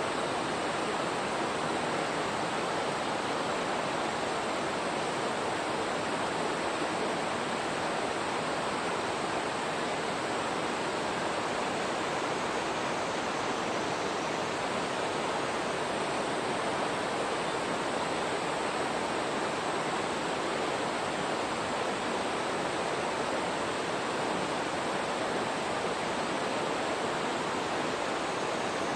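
Steady rushing noise of running water, even and unchanging throughout, with no monkey calls standing out.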